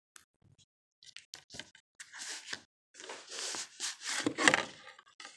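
Handling a Blu-ray in its cardboard slipcover: a few light clicks, then cardboard rustling and scraping against the plastic case as the slipcover is slid off, with a louder clack near the end.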